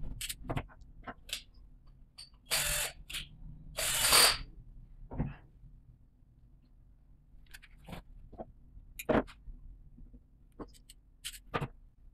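Wires being worked into DIN-rail devices in an electrical control panel with pliers: scattered sharp clicks and taps, and two short scraping noises about three and four seconds in, the second the loudest.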